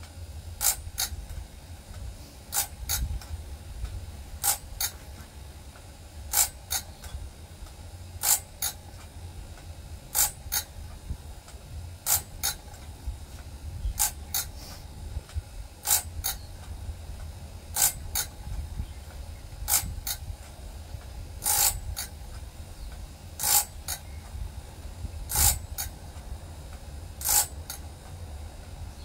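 Wood-Mizer BMS250 bandsaw blade sharpener cycling: a sharp double click about every two seconds as its ratchet-and-pawl feed advances the blade one tooth at a time for grinding, over the steady low hum of its motor.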